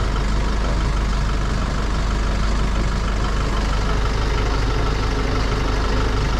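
Patrol pickup truck's engine idling with a steady, unchanging hum.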